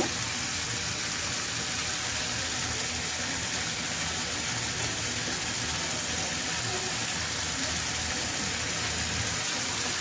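Steady hiss of a masala of spices and oil cooking in a pan over a gas burner, with grated coconut just added on top.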